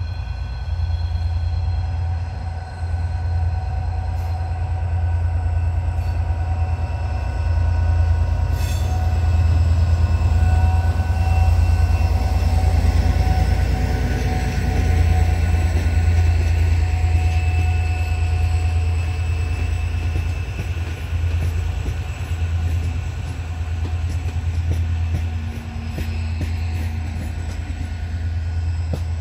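HŽPP class 2044 diesel locomotive's engine running with a steady low drone and a few steady higher tones over it, growing louder from about a third of the way in and easing off again after the middle.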